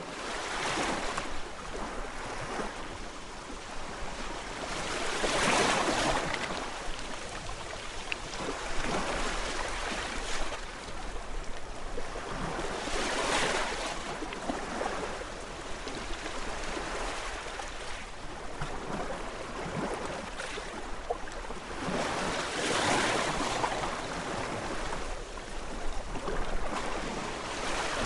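Calm sea: gentle waves washing in, the surf noise swelling and falling away every few seconds.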